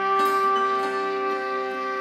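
Background music made of long, steady held tones layered together.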